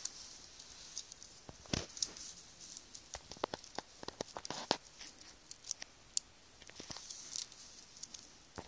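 Irregular small clicks and taps, with light rustling, of the plastic bogie and wheel parts of a model railway coach kit being handled and pressed together by hand.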